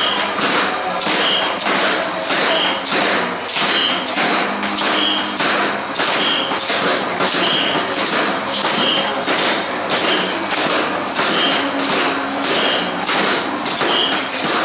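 Several sticks beating red box drums in a steady, fast rhythm of sharp strikes, with a brighter accent coming round about every second and a quarter.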